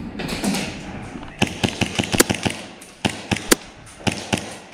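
Hi-Capa gas blowback airsoft pistol firing: a string of sharp cracks in three quick bursts, starting about a second and a half in.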